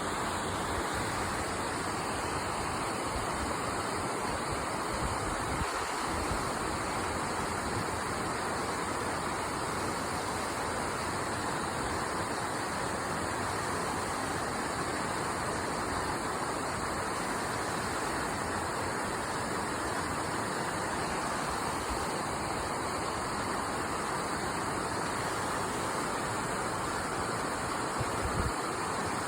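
A shallow river babbling and rushing over stones, with a steady, even level.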